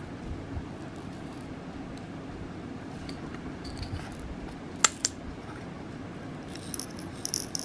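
Small container of seed beads being handled: a sharp click about five seconds in, then the beads rattling inside it near the end.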